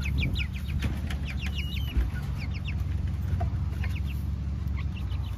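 Chickens clucking: short, high calls coming in quick runs over a steady low hum.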